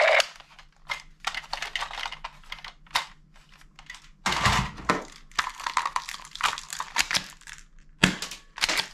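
Hard plastic toy guns clicking and clattering against each other as they are handled in a pile, with a heavier thump about four seconds in and another near the end.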